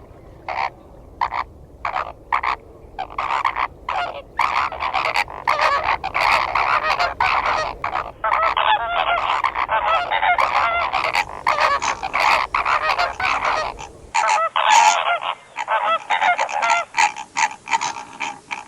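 A flock of flamingos calling with goose-like honks: separate calls for the first few seconds, then a dense, overlapping chorus.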